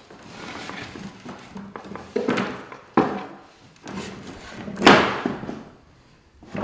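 Wooden knocks and thumps as a wooden tabouret tray is shifted and lined up against the wooden easel base, with handling rustle between them. Three sharp knocks stand out, about two, three and five seconds in, the last the loudest.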